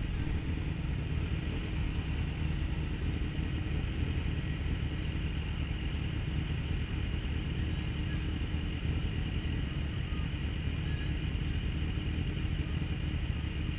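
Sport motorcycle engine idling steadily while stopped, with city street traffic around it.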